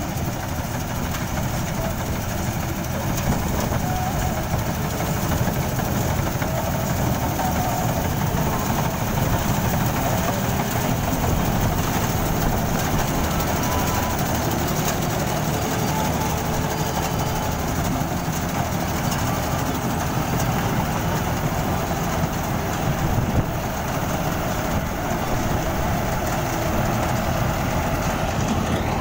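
Standard combine harvester running while it harvests a standing grain crop: a steady, loud mechanical din of its diesel engine and the working header and machinery.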